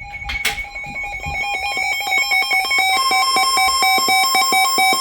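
Electronic alert tones of an Emergency Alert System warning: a rapid run of short beeps, about ten a second, at several pitches, growing louder over the first two seconds, with more pitches joining about three seconds in. A brief click sounds right near the start.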